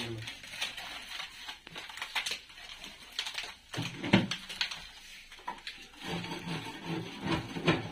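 Dried pigeon droppings and soiled cardboard being scraped and torn off a cage floor by hand and with a wooden stick: irregular scraping, crackling and knocks, with a stronger knock about four seconds in.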